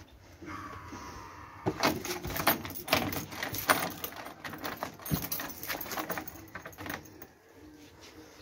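A dog's metal tether chain rattling and clinking in quick, irregular bursts for several seconds as the chained dog moves about.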